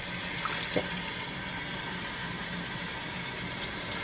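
Kitchen tap running steadily, water pouring over raw pork intestine being rinsed by hand above a plastic bowl in the sink. A light knock just under a second in.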